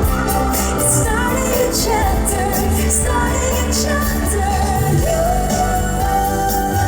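A woman singing a pop song live over a band accompaniment, holding one long note from about five seconds in.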